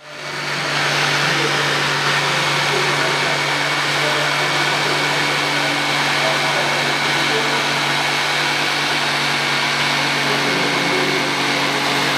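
Hyundai J800 corded jigsaw running steadily while its blade cuts a curve through a 20 mm wooden board. The sound fades in over the first second.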